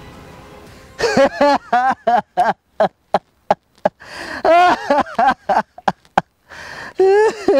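Background music fading out, then a man's voice in many short bursts whose pitch bends up and down, with dead silence between them.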